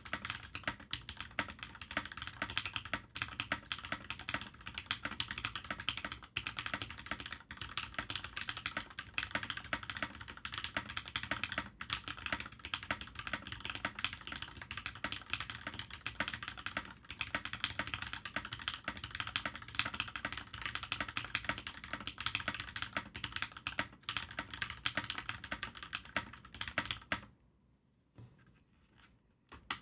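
Fast, continuous typing on a Fantech Maxfit61 mechanical keyboard with Gateron X switches: a dense stream of key clacks. It stops about 27 seconds in, and only a couple of single key presses follow near the end.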